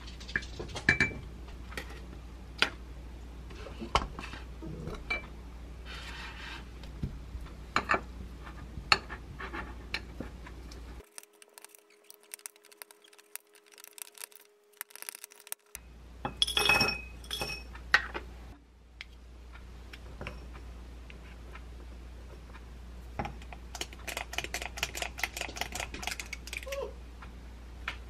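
A spoon clinking and scraping against a glass food container while matcha powder is stirred into Greek yogurt, with scattered sharp clinks and a quick run of rapid clinks near the end.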